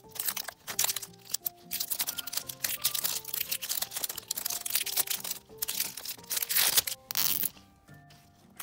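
Plastic wrapper and stickers crinkling and tearing as they are peeled off a plastic capsule ball, in quick irregular crackles and rustles, over light background music. The crackling dies down near the end.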